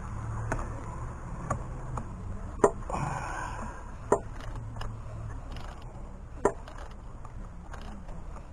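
Hand ratchet and socket tightening a spark plug: sharp single clicks a second or two apart, with a brief scraping rustle about three seconds in.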